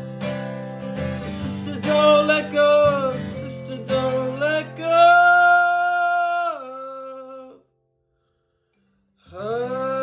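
Acoustic guitar with a sung melody that ends on a long held note, then cuts to silence for about a second and a half before voice and guitar come back in near the end.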